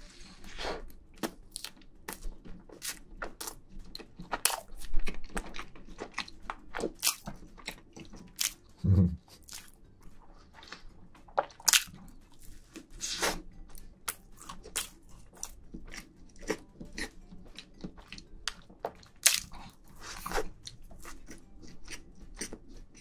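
Close-miked biting and chewing of a soft sponge cake topped with whipped cream: a steady run of wet mouth clicks and smacks.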